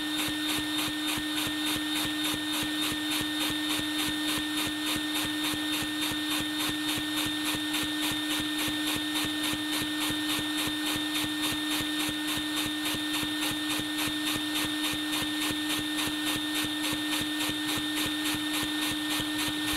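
LEGO vacuum engine with angled poppet valves running steadily on suction from a vacuum hose, its pistons and valves clattering in a fast, even beat over the vacuum's steady whine.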